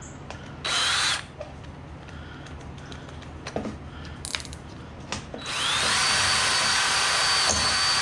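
Cordless drill boring into the housing of a router speed controller: a short burst about half a second in, then a longer run from about five seconds in, its motor whine rising and then holding steady.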